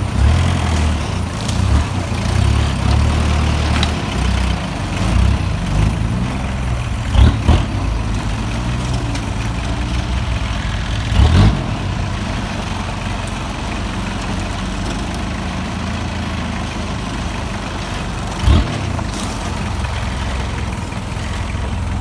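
Kia Sportage 4x4's engine running steadily at low speed as it crawls along a rough logging trail, with a few short thumps, the loudest about eleven seconds in.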